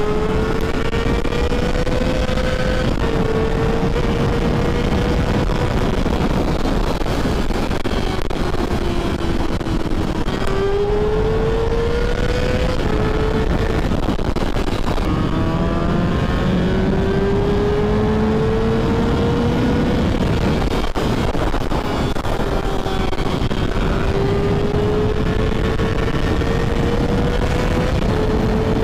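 Kawasaki ZX-6R 600 sportbike with a full Two Brothers exhaust, under way at highway speed. The engine note climbs steadily in pitch over several seconds, then drops back, again and again as the rider works the throttle and gears, over a constant rush of wind.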